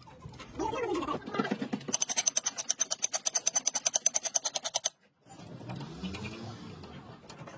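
A hand ratchet wrench clicking rapidly on a bolt, about ten clicks a second for some three seconds with a metallic ring, then cutting off abruptly.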